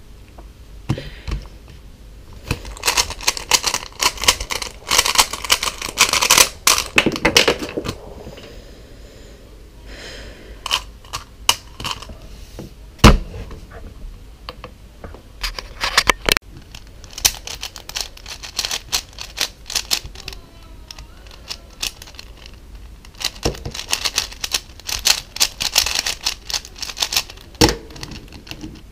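Rapid clacking of a speedcube's plastic layers being turned fast during a timed solve, in dense runs of clicks. A single loud crack about 13 seconds in, as the 3x3 cube pops and pieces fly out onto the mat, with another sharp knock a few seconds later; near the end come more fast runs of turning clicks.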